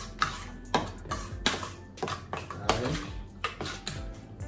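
A spoon clinking and scraping against a metal bowl in irregular strokes as raw chicken strips are mixed with seasoning.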